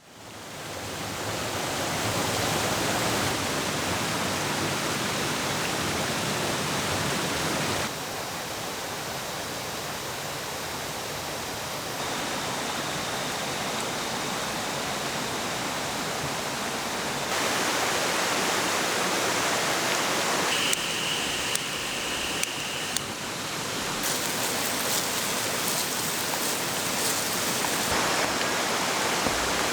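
River water rushing steadily, its level shifting a few times from one clip to the next. A few sharp clicks come in the second half, and a faint high steady tone is heard briefly past the middle.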